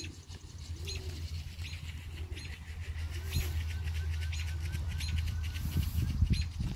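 Small birds chirping over and over, with a quick trill of short rising notes in the middle, over a steady low rumble.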